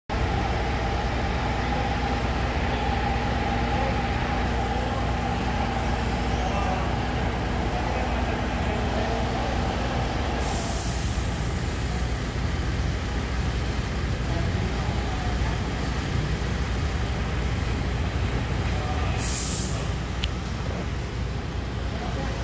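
Tyre-shop machinery humming steadily, with a steady whine that stops about halfway through, and two short bursts of compressed-air hiss, one about halfway and one near the end.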